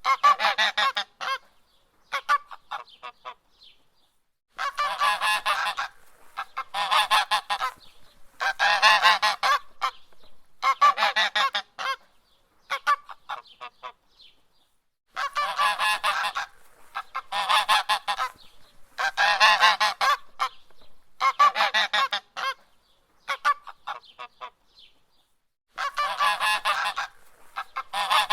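Goose honking in bouts of several quick honks, each bout lasting a few seconds, with pauses of about two seconds between bouts.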